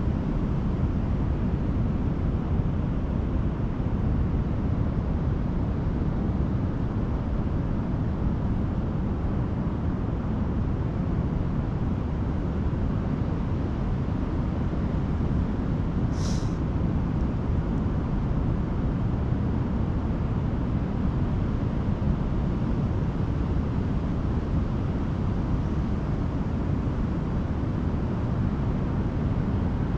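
Steady low rumble of wind buffeting the microphone, mixed with the wash of ocean surf on a beach. A single brief high chirp about sixteen seconds in.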